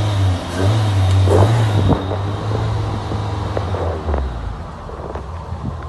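Renault Logan 1.6 eight-valve engine running unevenly, its speed rising and falling and dropping about four seconds in. The engine is misfiring like a dead cylinder, its spark plugs soaked in oil and fuel.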